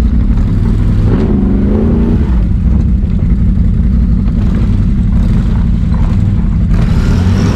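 Can-Am Renegade XMR 1000R's V-twin engine running at low speed through an SLG Sniper slip-on exhaust, with a short rev about a second in.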